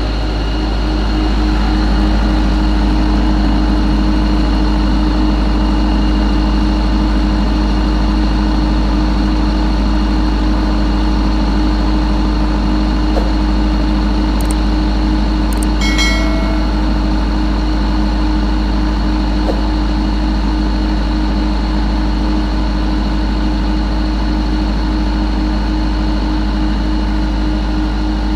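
Isuzu 40 kVA diesel generator running steadily at constant speed, with a brief click about halfway through.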